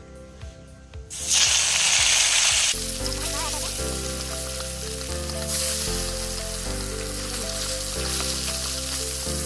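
Fish dropped into hot oil, sizzling loudly as it hits the pan about a second in, then frying with a steady sizzle. Background music comes in about three seconds in.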